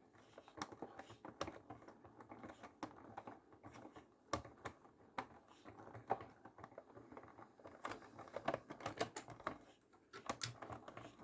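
Rapid, irregular clicking and tapping, many small sharp strokes with a short lull near the end.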